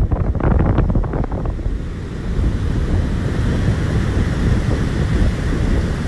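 Ocean waves breaking and foaming over rocks, with wind buffeting the microphone throughout. After about a second and a half the sound settles into a steady rushing hiss of surf over the deep wind rumble.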